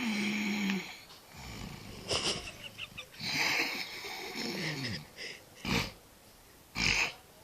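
A sleeping pet snoring in an irregular series of breaths, some of them wheezy with a tone that slides down in pitch.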